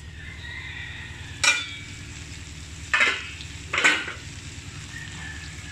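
Ground pork with onion and garlic frying in a wok, stirred with a spatula: three sharp clanks of the spatula against the pan, about a second and a half, three and four seconds in, over a steady low hum.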